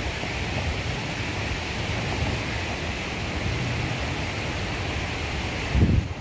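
Wind blowing across the microphone outdoors: a steady rushing hiss over low, fluttering buffeting, with a stronger gust thump near the end.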